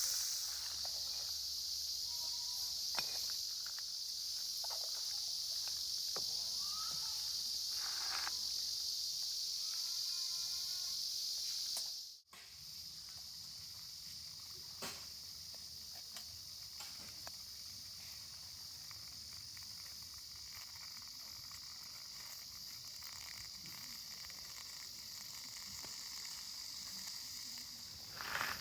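Steady high-pitched chorus of insects, with a few short chirping calls around ten seconds in; the sound drops out for an instant about twelve seconds in and resumes a little quieter.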